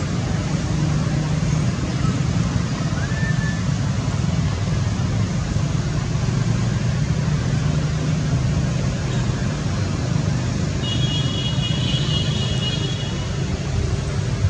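Steady low droning rumble like nearby engine or traffic noise. A faint high-pitched tonal call is held for about two seconds near the end.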